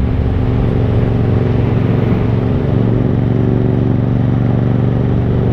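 Yamaha MT-07's 689 cc parallel-twin engine running steadily at cruising speed, heard from the rider's seat under a steady rush of noise.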